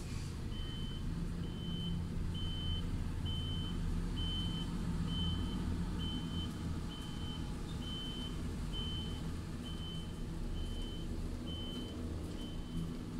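A truck's reversing alarm beeping steadily, a short high single-tone beep about once a second, over the low steady running of a truck engine as the rig reverses.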